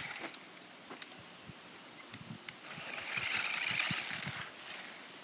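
Electric RC dune buggy driving on dirt: a hissing burst of motor and tyre noise that swells up about three seconds in and fades a second and a half later, with a few scattered clicks.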